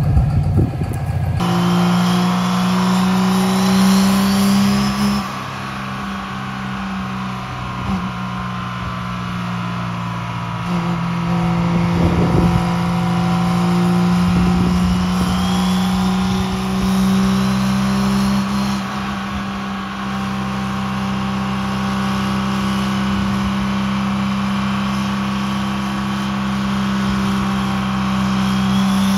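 Cummins diesel engine in a Dodge Ram pulling hard under load on a chassis dyno: a loud, steady, pitched drone whose pitch climbs slowly through the run and rises faster near the end. A higher turbo-like whistle rises twice over it.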